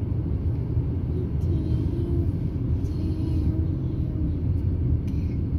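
Steady low rumble of a car in motion, heard from inside the cabin: engine and tyre noise.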